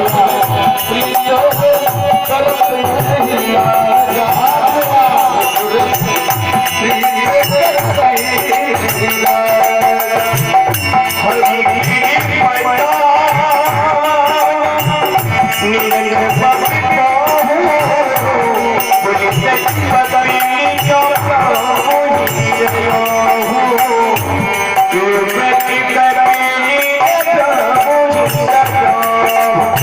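Indian devotional folk music: held harmonium tones and wavering melody over a steady hand-drum beat, with small cymbals jingling throughout.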